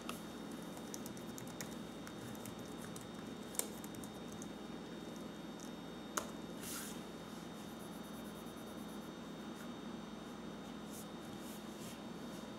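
Scattered clicks of laptop keys being pressed, with two sharper, louder key presses a few seconds apart, over a steady hiss and a faint steady high tone.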